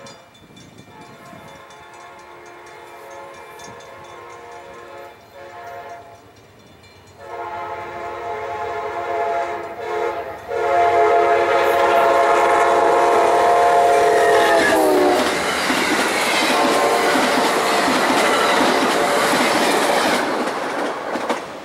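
Amtrak GE P42DC locomotive's air horn sounding in several long blasts as the train approaches, growing louder. Its chord drops in pitch as the locomotive passes about 15 seconds in, followed by the rush and clatter of the passenger train passing at speed, which falls away just before the end.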